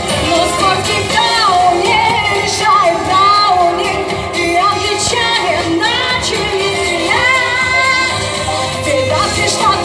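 Pop music playing loudly, with a gliding melody line over a steady backing.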